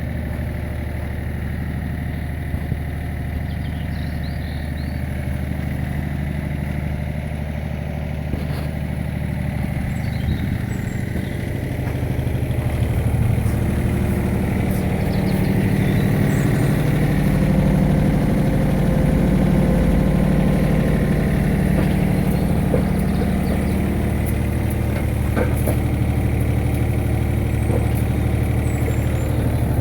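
Digger engine running steadily; about twelve seconds in it revs up and gets louder, then eases back a little near the end.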